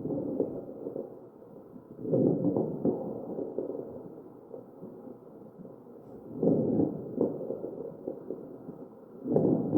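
Breath sounds of a mechanically ventilated patient heard through an electronic stethoscope: a loud rush with each ventilator-delivered breath, about every three to four seconds, fading between breaths. Short crackles pop through each breath.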